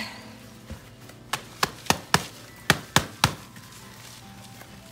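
Hands knocking on a black plastic plant nursery pot: about seven sharp knocks in quick, uneven succession, starting about a second in and stopping before the end.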